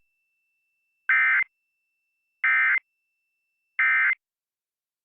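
Emergency Alert System end-of-message tones: three short, loud bursts of buzzy SAME digital data just over a second apart, signalling that the alert message is over.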